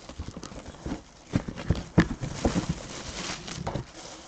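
A trading-card box and its packs being opened by hand: irregular taps and knocks of cardboard and cards, with a stretch of rustling wrapper about two seconds in.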